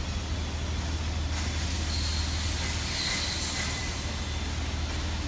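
Steady low hum of machinery in a factory hall, with a hiss that comes in about a second in and fades out near the end.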